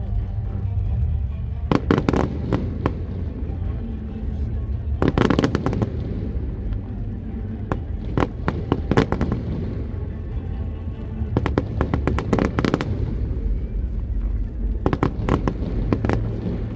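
Fireworks shells bursting in rapid volleys of sharp bangs, a cluster every few seconds, five clusters in all.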